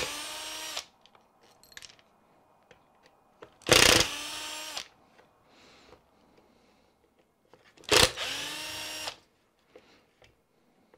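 Cordless power screwdriver run in three short bursts of about a second each, backing out the screws of the X-Maxx gear cover; each burst whirs up and holds a steady pitch.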